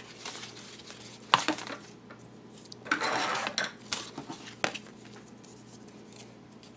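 Things being handled and set down on a wooden tabletop: a sharp knock about a second and a half in, a short scraping rustle around three seconds as a paper plate is slid into place, then two light taps.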